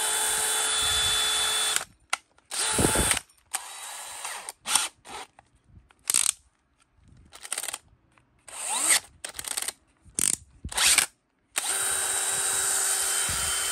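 DeWalt DCD996 20V MAX XR brushless hammer drill running unloaded in trigger pulls: a steady run of about two seconds at the start, several short bursts, then another two-second run near the end. Sharp clicks come between the runs.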